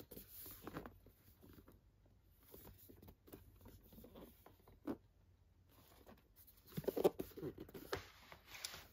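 Packaging being handled: a disc box set's outer sleeve and tin box sliding and rubbing against each other, with scattered light taps and clicks. The rubbing grows busier about seven seconds in.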